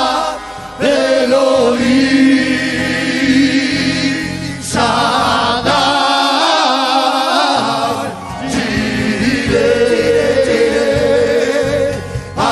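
Church choir singing a Spanish worship song, the sung words naming God: "Elohim", "Shaddai", "Jireh".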